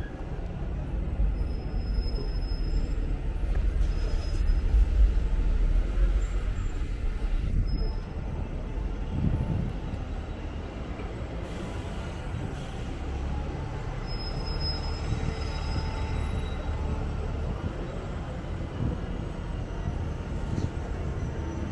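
Heavy street traffic dominated by a city bus's diesel engine running close by, a low rumble that is loudest in the first several seconds and then eases, with a few brief high squeaks.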